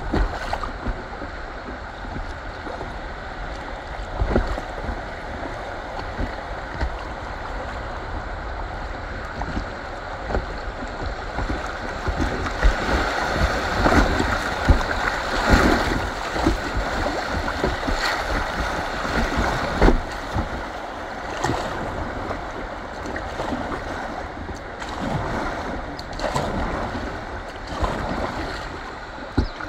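Fast river water rushing and splashing around an inflatable kayak running a class I rapid, louder through the whitewater in the middle and easing off near the end. Frequent short low thumps sound on the microphone throughout.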